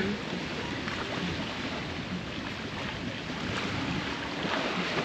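Steady wash of waves on the shore with wind noise on the microphone.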